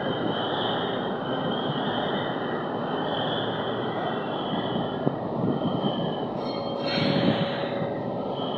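Diesel engine of a cargo lighter running steadily, a continuous rumble, with a brief louder stretch about seven seconds in.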